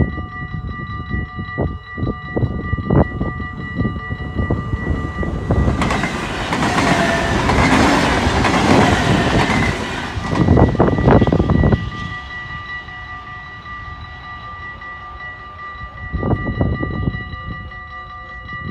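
Level-crossing warning bells ringing steadily, with wind buffeting the microphone in low thumps. From about six to ten seconds in, a loud rushing noise swells over the bells and dies away.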